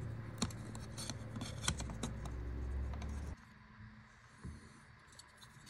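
Small clicks and scrapes of a laptop cooling fan's plastic housing being handled and lifted out by hand, over a low steady hum. The hum stops abruptly about three seconds in, leaving near silence with a couple of soft ticks.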